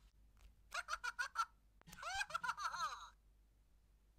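Furby Furblet Ooh-Koo electronic toy laughing: a quick run of high, staccato giggles about a second in, then a warbling chirpy giggle with falling pitch sweeps lasting about a second.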